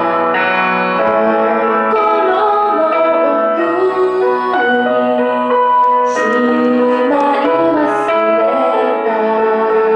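A woman singing a slow pop ballad with piano accompaniment.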